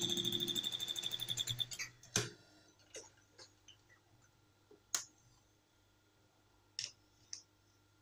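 Sewing machine running at speed, stitching a trouser seam with a rapid, even stitching rhythm, stopping about two seconds in. A sharp click follows, then a few quieter clicks and taps.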